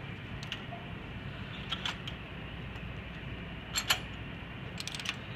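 Small metal clicks and light knocks as a sample magazine is fitted onto its leading pin inside a mass spectrometer's source housing. There is a sharp double click about four seconds in and a quick run of small clicks near the end, over a steady low hum.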